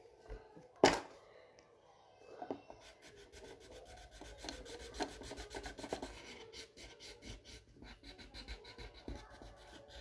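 A sharp click about a second in, then rapid, regular scratchy rubbing on paper from about three seconds in.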